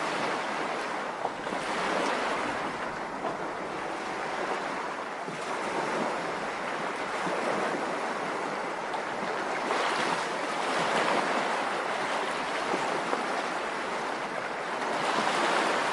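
Continuous rushing water, swelling and easing every few seconds.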